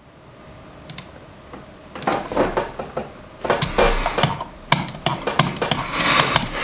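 Typing on a computer keyboard: a few single key clicks, then irregular bursts of rapid keystrokes.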